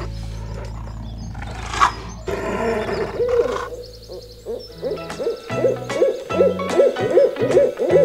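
Owl hooting: after a quiet start, short rising-and-falling hoots begin about three seconds in and run into a rapid series of about two a second, getting louder toward the end.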